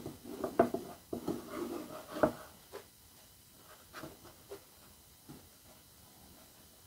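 Pine board and MDF sheet being handled on a tabletop: a run of light wooden knocks and short scrapes as the board is slid into place, the loudest knock a little after two seconds in, then only a few faint ticks.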